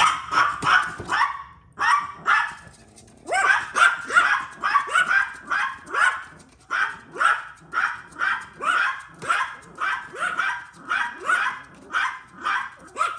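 Yorkshire terriers barking: a few barks, brief pauses, then a steady run of about two barks a second. The owner puts the barking down to the dogs not being used to the new water fountain.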